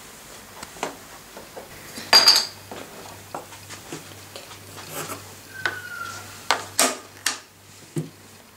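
Scattered sharp clicks and clacks of small plastic Mini LUK tiles, their plastic case and a pencil on a wooden tabletop, with one louder ringing clink about two seconds in.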